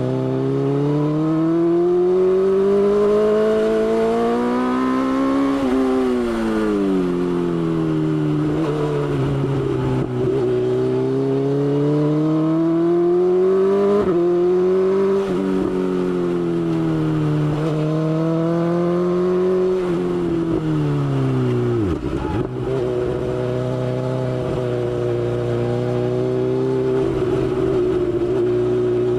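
BMW S1000XR's inline-four engine under way, the revs climbing and falling several times as the throttle is opened and closed. About three-quarters of the way through the revs drop sharply, then hold a steady note.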